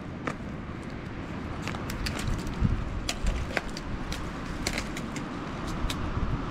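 Dry dead branches and twigs cracking, snapping and scraping as a fallen tree is dragged by hand, in a scatter of sharp irregular snaps over a low steady rumble.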